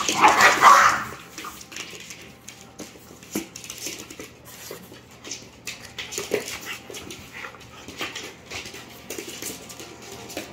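Dogs squabbling and scuffling on a wooden floor. A loud burst of dog noise comes in the first second, then quieter, intermittent dog sounds with scattered short clicks and scuffles.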